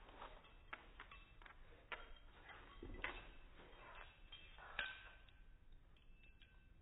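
Faint, irregular clicking and tapping of small dogs' claws and paws on a hardwood floor as they move about, with a couple of sharper taps about three and five seconds in.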